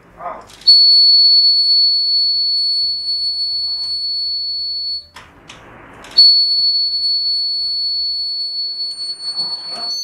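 Electronic buzzer of a laser-and-LDR security alarm sounding a steady high-pitched tone each time the laser beam across the doorway is broken: one tone of about four seconds, a second's break, then a second tone that runs on.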